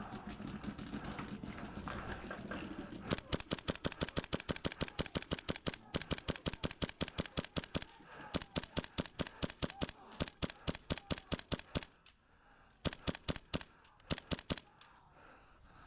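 KWA MP7 airsoft gun running on HPA fires long full-auto strings of sharp shots at about ten shots a second, starting about three seconds in. After a pause, two short bursts come near the end.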